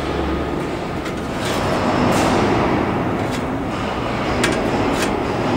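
Steady mechanical rumble of factory machinery, with a few light clinks of sheet-metal parts being handled.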